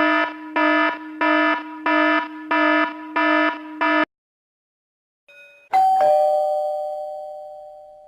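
Electronic doorbell sound effect: a buzzing, pitched ring pulsing about one and a half times a second, which stops about four seconds in. After a short gap comes a single bell-like chime, struck once and slowly dying away.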